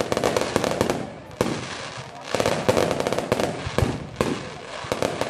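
Aerial fireworks display: shells bursting in a rapid string of bangs and crackles, with one of the sharpest bangs about a second and a half in.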